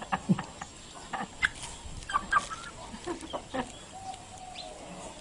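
Chicken clucking in short, scattered calls, with one longer, steadier call about four seconds in.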